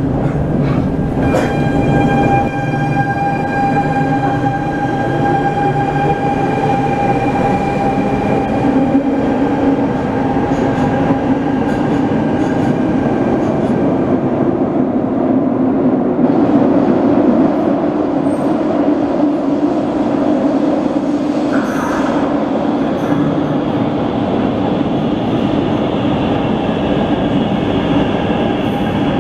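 Barcelona Metro electric trains running: first the rumble of a car in motion heard from inside, with a steady high whine for the first several seconds, then a metro train moving through an underground station, with a rising whine near the end.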